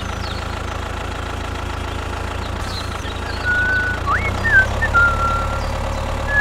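Engine idling steadily with a low rumble. From about three seconds in, a few short high chirps that slide in pitch sound over it.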